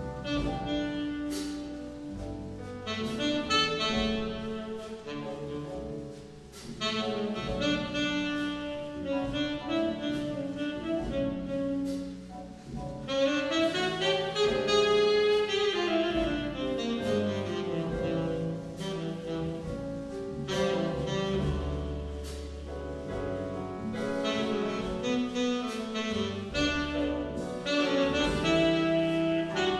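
Jazz big band playing, with a saxophone out front carrying the melody over sustained brass chords, piano, double bass and drums with cymbal strokes.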